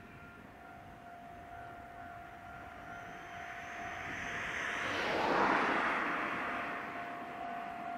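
Level-crossing warning bell ringing steadily while a road vehicle passes close by, its noise swelling to a peak about five seconds in and then fading.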